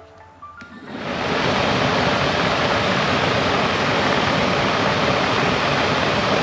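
Ford Mustang heater blower motor switched on about a second in, then running steadily with a rush of air and no chirp, its bearing freshly lubricated.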